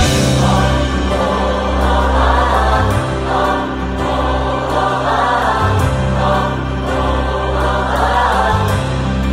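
Music: a choir singing over held low notes that change every few seconds.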